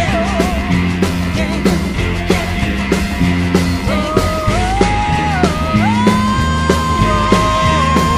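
Roots-rock/country band recording with a steady beat and bass under a lead melody that slides between notes, holding one long high note through the second half.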